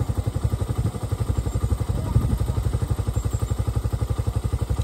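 Motorcycle engine idling, a steady fast putter of even pulses.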